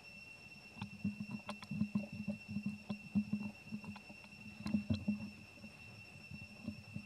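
A steady, high-pitched insect drone, with irregular low crackling and thumping from about a second in until about five seconds in, then again faintly near the end.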